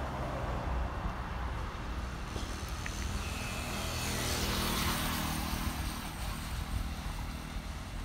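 Road vehicle noise: a steady low rumble, with a wider rushing sound that swells about four to five seconds in and then fades, as of a car passing.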